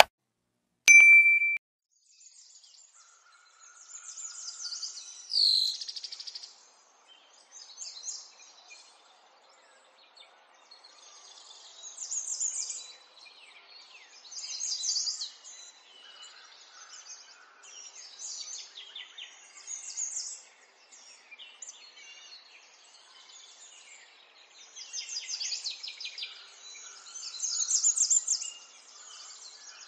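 A click and a short bell-like ding about a second in, then small birds chirping and twittering in high bursts every second or two.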